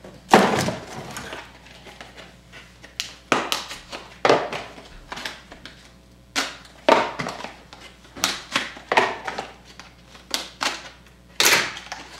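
A cardboard trading-card box being cut open with scissors and pulled apart by hand: an irregular run of sharp crackles, snips and taps of cardboard and wrapping.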